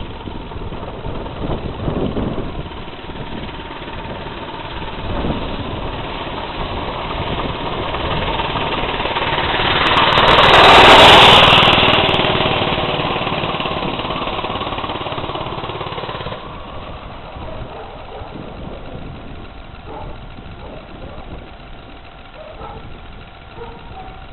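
Motorized bicycle's 3 hp Predator single-cylinder engine running as the bike rides toward and past, growing louder to a peak about eleven seconds in, then fading as it rides away.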